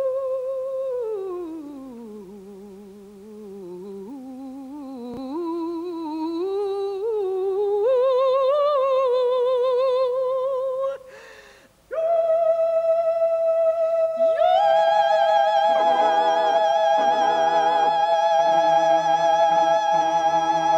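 A high singing voice holds one long note with a wide vibrato, slides down, wavers and climbs back up, and breaks off about eleven seconds in. Steady held notes without vibrato follow, a second, higher one entering a couple of seconds later.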